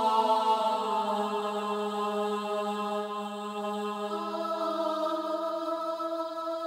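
Slow background music of long, held notes, with a change of chord about four seconds in.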